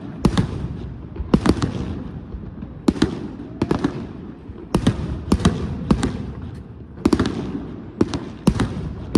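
Fireworks of a castillo (a pyrotechnic tower) going off: an irregular string of sharp bangs, one or two a second, each dying away in a short crackling tail.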